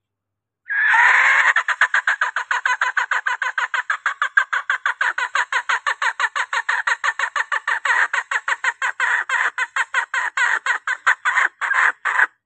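Female junglefowl calling: a quick, steady series of clucks, about six a second, after a longer opening note, ending abruptly near the end. It is a hen's call, used as a lure to bring cocks in.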